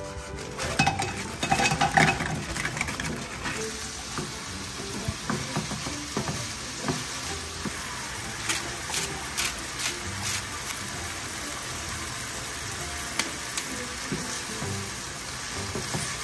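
Thin beef brisket, green onions and enoki mushrooms sizzling as they stir-fry in a frying pan, with a spatula knocking and scraping against the pan. The first few seconds hold louder clatter. A salt grinder clicks a few times at about eight to ten seconds in.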